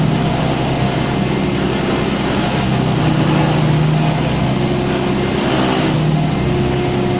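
Mengele Blitz 1000 silage chopper-blower running steadily under load, chopping fresh grass fed in by its conveyor and blowing it up the pipe into a tower silo, driven by a Hürlimann XA86 tractor. A steady low machine hum under a dense rushing noise.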